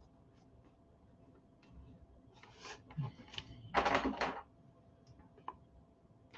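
Faint rustling and scraping of a glued cardstock-and-chipboard piece being handled and pressed, with one louder rough rustle about four seconds in and a few small clicks near the end as small wooden clips are set on its edge.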